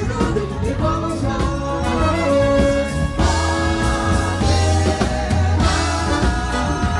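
Live samba band playing, with keyboards, bass and drums and a woman singing.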